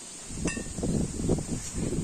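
Wind buffeting the microphone with an uneven rumble that grows louder toward the end. A single short metallic clink comes about half a second in.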